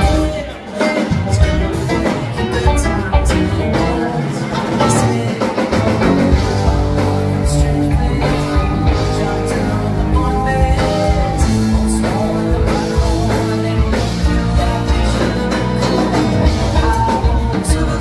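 Live rock band playing loudly through a club PA: electric guitars, bass and drums. The sound drops briefly about half a second in, then the full band comes back in with a hit.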